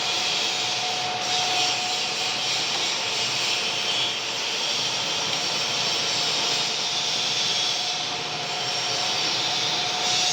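Metal lathe running, a steady high hiss with a faint constant whine.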